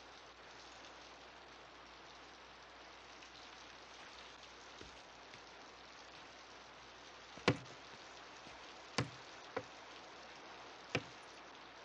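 Four sharp knocks in the second half, the middle two close together, over a steady low hiss.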